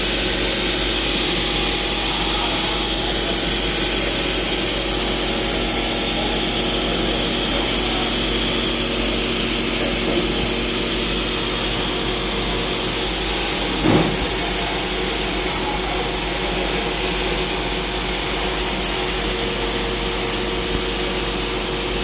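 CNC machine running while cutting, a steady machine noise with a constant high whine. One short knock about fourteen seconds in.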